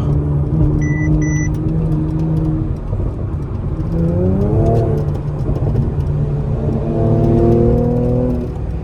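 Car engine running, heard from inside the cabin, with two short electronic beeps about a second in. The engine pitch rises as the car accelerates about four seconds in, and again near the end.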